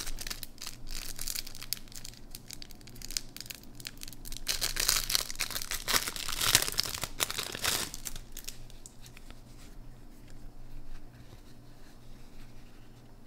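Thin clear plastic packaging bag rustling and crackling as it is handled, opened and a microfiber cloth pulled out. Loudest through the middle, then dying down to light handling near the end.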